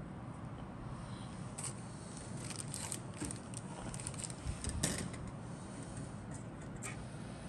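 Scattered light clicks and rustles of plastic model-kit sprues being handled and set down on a cutting mat, the loudest cluster a little under five seconds in, over a steady low hum.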